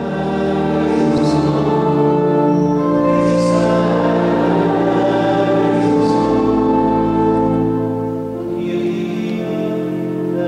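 Choir singing a slow sacred piece in long held notes, with a new, slightly softer chord about eight seconds in.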